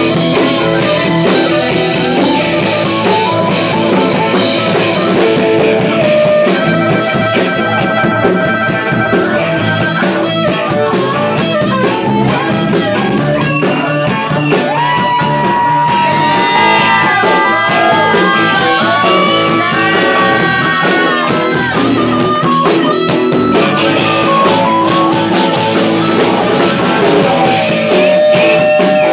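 Live blues-rock band playing loudly, with electric guitar, drum kit and a harmonica cupped to the vocal microphone. Long harmonica notes bend up and down over the band about halfway through.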